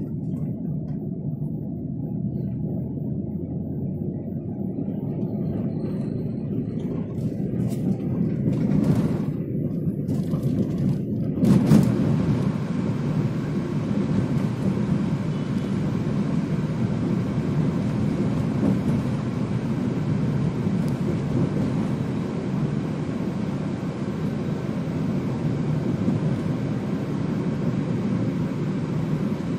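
A car driving, heard from inside the cabin: a steady low rumble of engine and road noise, joined by a hiss from about twelve seconds in.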